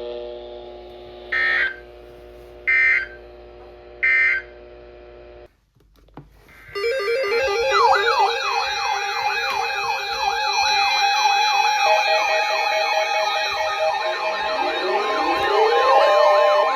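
Three short screeching data bursts of an Emergency Alert System end-of-message code, closing a weather radio snow squall warning, over steady held tones. After a brief drop-out, electronic music with fast, repeating siren-like wailing sweeps comes in.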